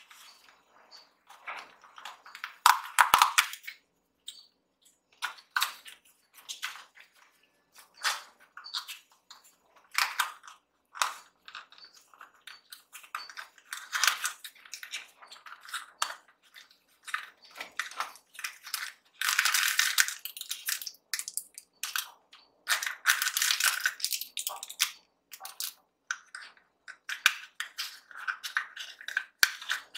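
Small cardboard blind box being opened by hand: flaps scraping and paper crinkling and rustling in many short, irregular bursts, with louder stretches a few seconds in and again about two-thirds of the way through.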